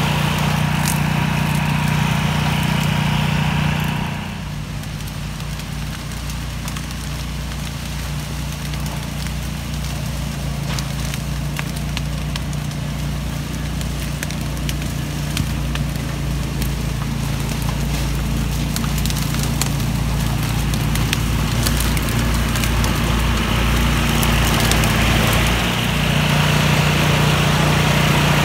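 Small gasoline engine of a DR Power tow-behind field and brush mower running steadily at the start and again from near the end. In between, the deeper engine rumble of a Kubota RTV utility vehicle driving through brush, with many sharp crackles of stems snapping under it.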